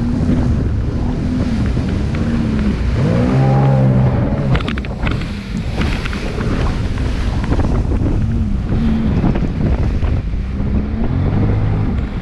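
Jet ski engine running at speed, its pitch swinging up and down as the craft rides over choppy storm waves, with one sharp rev-up about three seconds in. Heavy wind buffets the microphone throughout, and water spray splashes against the craft and rider.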